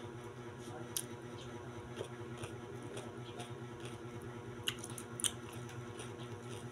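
A few soft clicks and squishy handling sounds as fingers pick at battered quail eggs (kwek-kwek) and cucumber slices on a foil-lined plate, over a faint steady hum.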